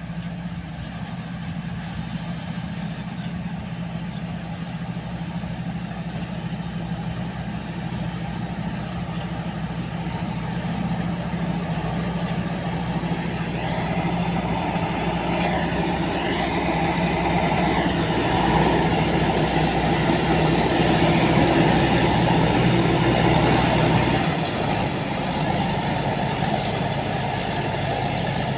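Rice combine harvester engine running steadily, getting louder through the middle and easing back about 24 seconds in. Two brief high hisses are heard, one early and one about 21 seconds in.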